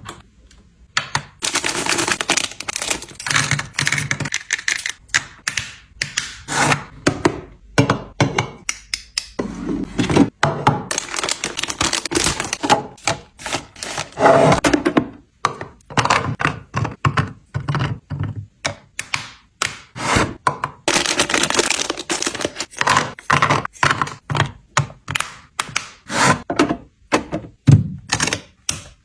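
Many short thunks and clacks of hard objects being handled and set down, irregular and several a second.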